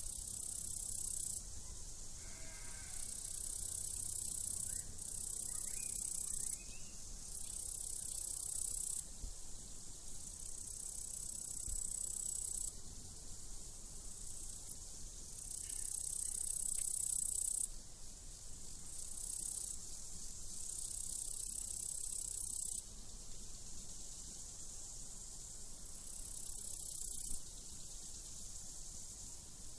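Crickets chirping in a high, steady band that starts and stops in stretches of a few seconds, with a sheep bleating faintly two to three seconds in.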